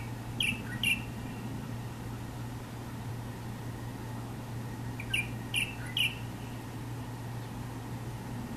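Chinese bulbul (light-vented bulbul) singing: two short phrases of three or four quick notes each, one at the start and one about five seconds in, over a steady low hum.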